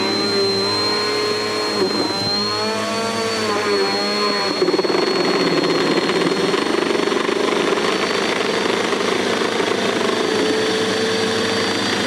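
Bissell PowerForce Helix upright vacuum cleaner running with a steady high whine while sucking up a strip of paper towel. Its drone wavers in pitch at first, then about four and a half seconds in turns rougher and noisier with a steady lower hum.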